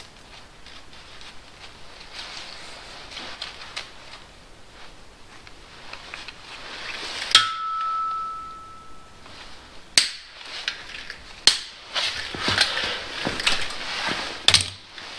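Metal tools and engine parts being handled: soft rustling, then a sharp metal clink about halfway through that rings on as a clear ding for a couple of seconds, followed by scattered clicks and clinks near the end.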